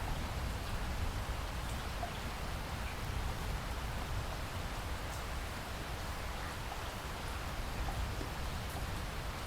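Steady rain falling, with an even hiss and scattered drop ticks over a constant low rumble.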